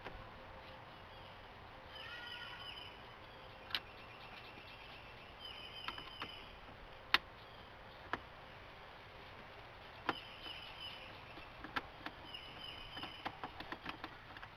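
Sharp plastic clicks and snaps from a Nissan 240SX's dashboard center unit and its trim being worked loose by hand, scattered through, the loudest about seven seconds in. Birds chirp faintly in the background.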